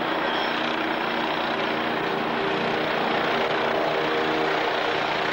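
Helicopter passing low overhead: steady rotor and engine noise, growing a little louder about halfway through as it comes closest.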